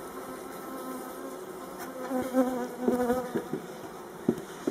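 Honeybees buzzing in a steady hum around an opened Warré hive, swelling and wavering in pitch as bees fly close past. Near the end come a few short wooden knocks as the hive roof is set on.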